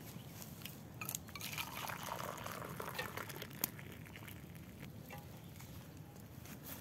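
Tea poured from a soot-blackened camp pot into enamel mugs, the stream splashing into the liquid. One sharp click stands out about three and a half seconds in.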